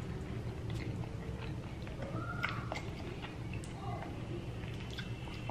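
A person chewing and biting into tacos close to the microphone, with scattered sharp mouth clicks over a steady low hum.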